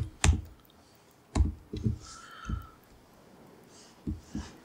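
A few scattered laptop keystrokes and clicks, about half a dozen sharp taps at uneven intervals.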